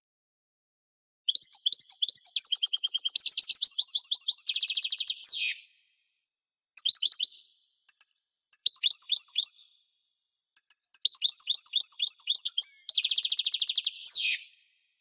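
European goldfinch singing: four phrases of rapid, high twittering trills separated by short silences, the two long phrases each ending in a quick falling note.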